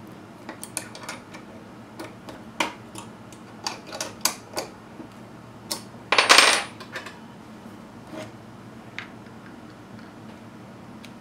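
Scattered small metallic clicks and clinks of an aluminium lathe headstock, its fittings and a hex key being handled on a wooden bench during assembly, with one louder rattle of under a second about six seconds in.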